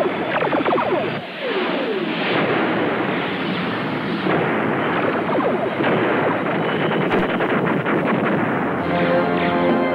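Cartoon laser-blast and explosion sound effects, a dense run of zaps that fall in pitch, with rapid sharp blasts in the second half. Music comes in near the end.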